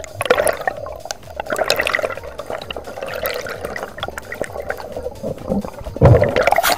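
Air bubbles rushing and gurgling past an underwater camera, in irregular surges, loudest near the end.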